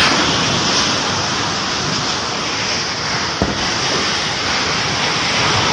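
Swat River in flood, its swollen water rushing past in a loud, steady, dense wash of noise.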